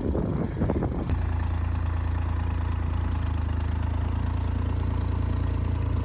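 Cat 304 mini excavator's diesel engine running steadily with a low drone, picking up slightly about a second in after a few knocks.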